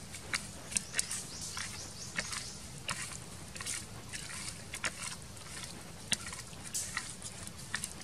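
Hands massaging a chopped garlic and chilli seasoning into raw pig heart and pork kidney: wet squishes and small irregular clicks as the meat is squeezed and turned.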